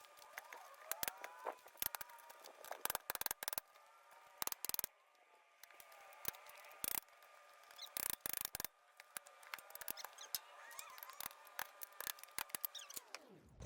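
Irregular sharp metal clicks and taps at a fairly low level as the split locking ring of a 1940s split-rim wheel is worked around into its groove on the rim.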